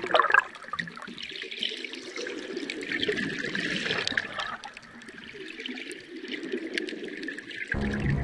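Underwater nature-sounds recording: a wash of water noise with many small scattered clicks. Music comes back in just before the end.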